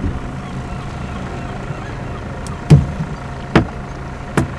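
Steady drone of a motorboat engine, with three sharp knocks a little under a second apart, the first the loudest.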